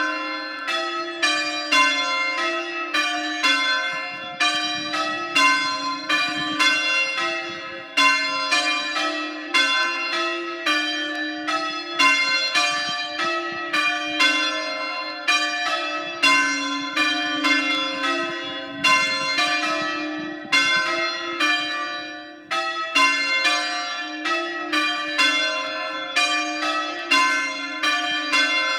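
A ring of three Mears-cast church bells, tenor 4–2–6 in C, loud and rung full circle in change-ringing style. It is a steady train of strikes, each one ringing on into the next, with a brief break in the rhythm now and then.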